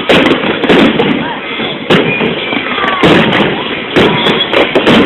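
Fireworks display: aerial shells bursting in a string of loud, sharp bangs, about eight or nine in five seconds, over a continuous crackle.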